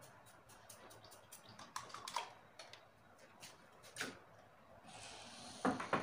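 Scattered light clicks and taps of small objects being handled, then a wooden cabinet's glass-paned door being unlatched and pulled open, with a couple of louder knocks near the end.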